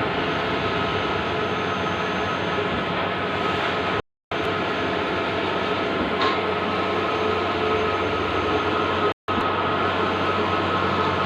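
Bluewin large-format outdoor printing machine running: a steady mechanical hum and whine. The sound cuts out completely twice, for a moment about four seconds in and again about nine seconds in.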